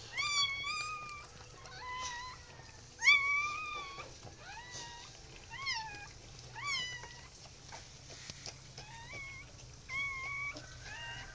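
Newborn puppies squealing and whining: about ten short, high, thin cries, roughly one a second, each rising sharply at the start and then levelling off or dropping.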